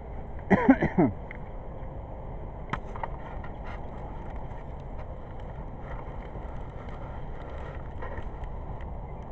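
A short vocal cry about half a second in, falling in pitch over a few quick pulses, over a steady rushing noise.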